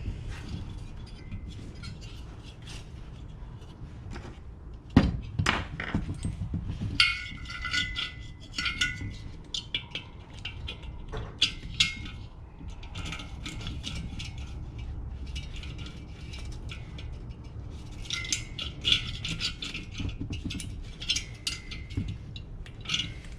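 Metal tools and heater parts clinking and clicking while the glow plug is fitted back into a Chinese diesel heater, in several runs of rapid metallic ticks with a light ringing, the sharpest knocks about five seconds in.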